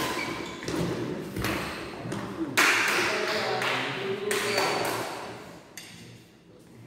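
Badminton rackets hitting a shuttlecock in a doubles rally: a run of sharp hits a second or so apart, dying away about five seconds in when the rally ends.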